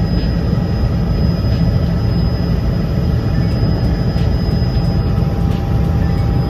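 Helicopter cabin noise in flight: a loud, steady rumble of engine and rotor, with a thin, steady high whine on top.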